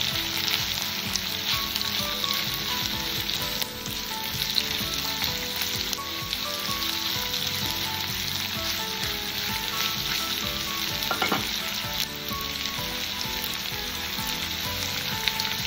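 Sliced onions sizzling in hot oil in a nonstick kadai while a wooden spatula stirs them. The onions are being sautéed until golden.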